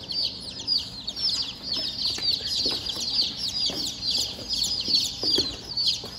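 A boxful of baby chicks peeping nonstop: many short, high, falling cheeps overlapping into a steady chorus.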